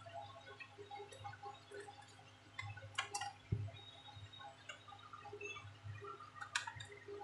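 Light clicks and taps of plastic as the Asus X540U laptop's palmrest and keyboard frame are handled and fitted, with two sharper clicks, about three seconds in and near the end.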